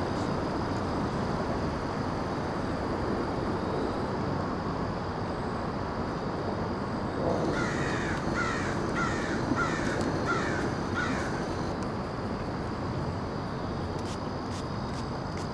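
A bird calling over a steady outdoor background hiss: about halfway through, a run of about seven repeated calls, roughly two a second, lasting some four seconds.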